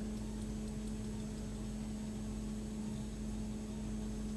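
Steady operating-room background: a constant low hum over a light hiss, with no distinct sounds.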